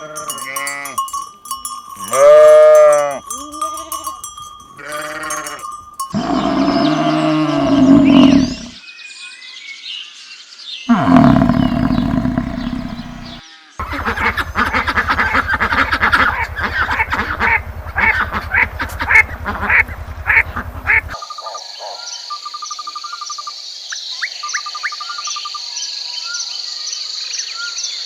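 A run of different animal calls cut one after another. Bleating calls with rising-and-falling pitch come in the first few seconds, then lower calls, then a stretch of rapid pulsing noise. A high steady buzz with short chirps takes up the last seven seconds.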